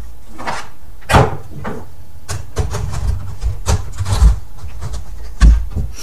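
Metal lamp housing of a Kodak Carousel slide projector being handled and slid back into the projector body: a series of knocks, scrapes and clunks, the loudest about a second in and another near the end.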